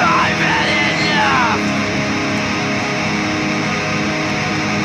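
Heavy band music with distorted electric guitar, with sliding, bending tones in about the first second and a half.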